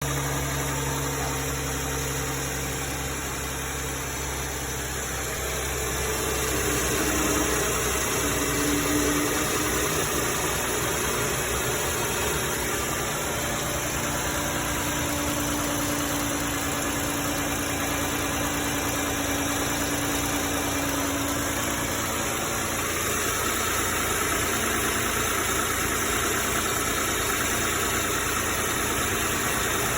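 Car engine idling steadily, with the tick that the owner takes for noisy valve lifters.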